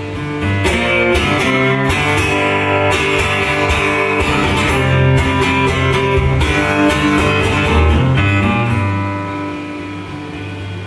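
Amplified acoustic guitar strummed hard in full chords, an instrumental stretch of a song. The strumming stops about nine seconds in and the last chord rings on.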